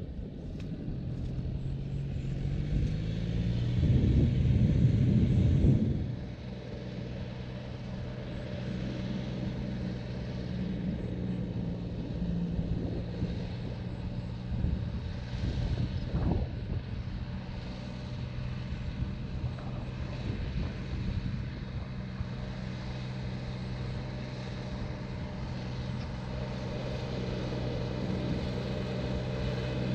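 Distant tractor's diesel engine running steadily under load while plowing, a low even drone. A loud low rumble breaks in about four seconds in and lasts about two seconds.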